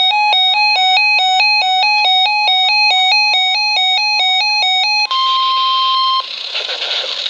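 Weather-alert radio alarm: two electronic tones warbling back and forth about four times a second for about five seconds. It then switches to a single steady tone near 1 kHz, the NOAA Weather Radio warning alarm tone, which cuts off after about a second into radio hiss.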